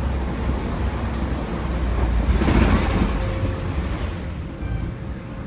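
Safari truck moving along, a steady low vehicle rumble that swells louder for a moment about two and a half seconds in.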